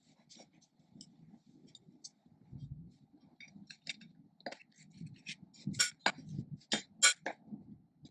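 Small hard clicks and clinks from an inline skate frame and its mounting bolts being handled and fitted against the boot's plate, sparse at first, then a quicker run of louder, sharper clicks in the second half.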